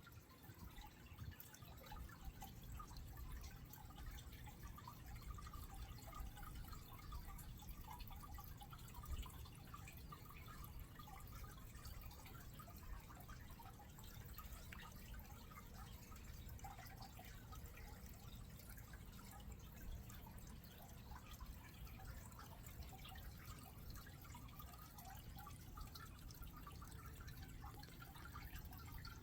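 Faint water trickling and dripping as nutrient solution runs through a rain-gutter NFT hydroponics system.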